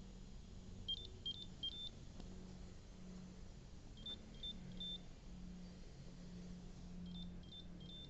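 Electronic beeping from an Instant Pot single-serve K-Cup coffee maker: sets of three short, high beeps repeating about every three seconds over a faint low hum.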